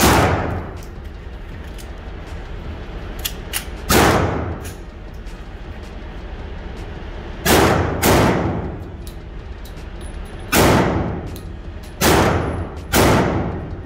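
About seven 10 mm pistol shots, unevenly spaced, some in quick pairs, each with a long echo off the walls of an indoor range.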